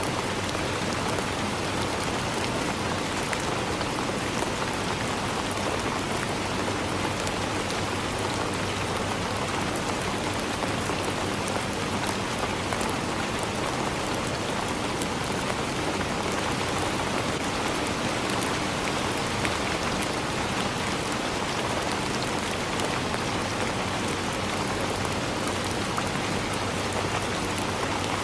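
Steady rain falling on forest leaves, an even hiss of many small drop patters with no letup.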